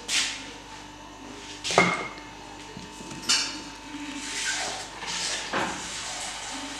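A metal offset spatula and cake turntable being handled: a few knocks and clinks, the loudest about two seconds in with a short metallic ring. Softer scraping and rustling follow as a sponge cake layer is lifted and set in place.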